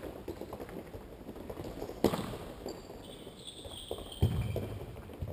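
Futsal players' running footsteps and shoe squeaks on an indoor sports court, with two sharp ball strikes, one about two seconds in and one a little after four seconds, ringing in a large hall.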